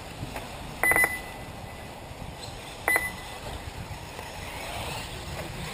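Two short electronic beeps about two seconds apart, each a quick clicky burst ending in a high ringing tone, from an RC race timing system, over a steady low outdoor background. Such beeps typically sound as a car's transponder crosses the lap-counting loop.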